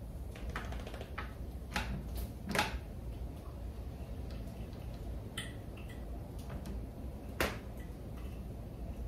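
Irregular light clicks and taps from hands working on the flyer of a wooden spinning wheel during a repair, with two sharper knocks, one about two and a half seconds in and one about seven seconds in, over a steady low rumble.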